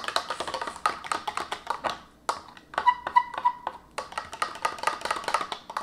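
A spoon clicking rapidly against the sides of a small glass measuring cup as gelatin powder is stirred into hot water to dissolve it. There is a short lull about two seconds in, and a few clinks about three seconds in ring like glass.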